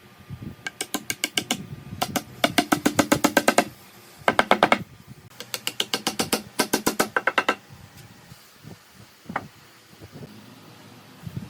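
Rapid sharp knocking, about ten knocks a second, in five bursts over some seven seconds, followed by a few single knocks.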